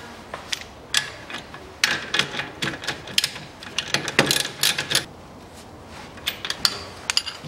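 Socket ratchet clicking in quick runs as it tightens the strut-to-steering-knuckle bolts, with light clinks of the tools on the metal.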